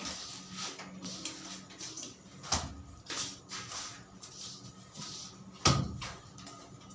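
Work noises: short scraping and rustling sounds, broken by two sharp knocks, the louder one near the end.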